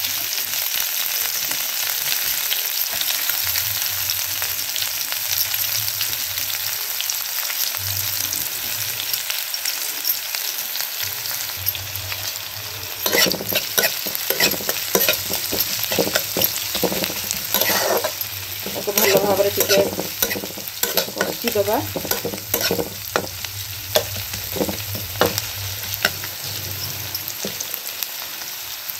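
Chopped onions and cumin seeds sizzling in hot oil in a kadai. About halfway in, a spatula starts stirring them, scraping and knocking against the pan in quick, irregular strokes.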